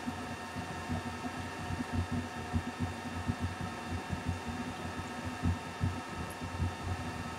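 Oxyhydrogen (Brown's gas) bubbling into a water-filled graduated cylinder during a displacement flow test: an irregular run of low blubs, several a second. Under it runs the steady hum of the HBS10 electrolysis unit.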